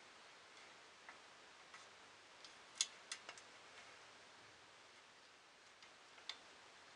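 Near silence broken by a few light clicks and taps of metal printer-frame parts being handled: a quick cluster of four about three seconds in, and one more near the end.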